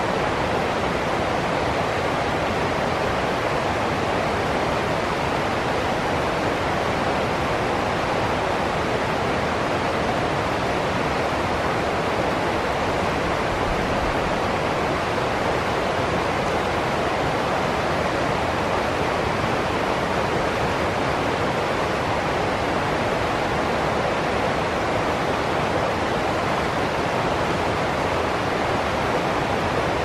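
Stream water rushing over rocks and small rapids, a steady unbroken rush.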